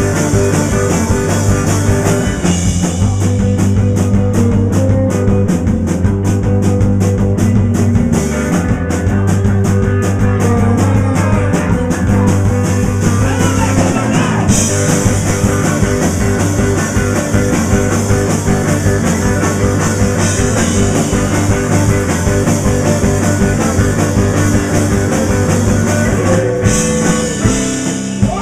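Live rock band playing an instrumental passage: electric guitar and drum kit with cymbals, loud and dense. The low end drops away near the end.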